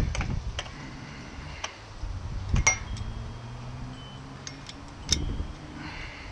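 Light metallic clinks of a socket and ratchet being handled, a handful of separate sharp taps with the loudest about two and a half seconds in and again about five seconds in.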